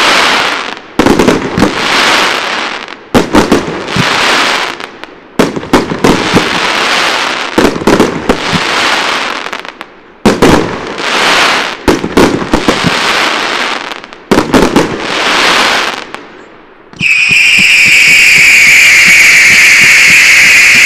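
Fireworks display: a string of loud launches and bursts, each trailing off into crackle. About three-quarters of the way in, a loud, continuous whistle takes over, sliding slowly down in pitch, from whistling fireworks effects.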